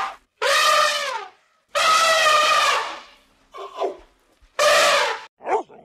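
Elephant trumpeting: three loud calls about a second long each, with a fainter, shorter call between the second and third.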